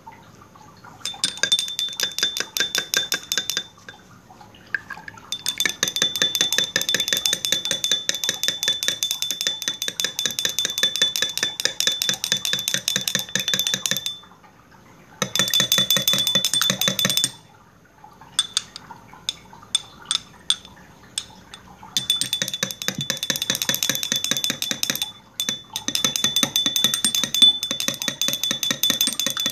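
Fast, even clinking of a stirrer against a glass container as a liquid mixture is stirred, with a glassy ringing tone under the strokes. The stirring stops and starts several times, with a few separate clinks in one pause.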